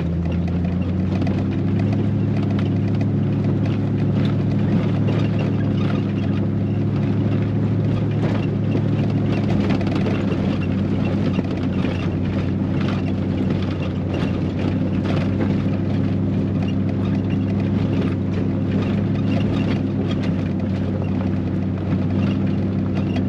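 Chevrolet Silverado pickup's engine droning steadily from inside the cab as it drives a rough gravel road, with scattered knocks and rattles from the rough surface.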